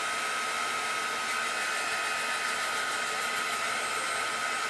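Craft heat gun blowing steadily: an even rushing hiss with a steady high whine.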